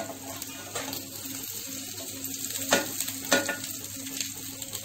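Oil sizzling steadily in a grill pan as bread-and-vegetable short cakes shallow-fry, with a few sharp clicks of a metal spatula against the pan as the pieces are turned and lifted.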